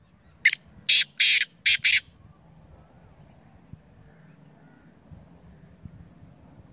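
Black francolin calling: one harsh phrase of five quick notes, the third a little longer, over about a second and a half.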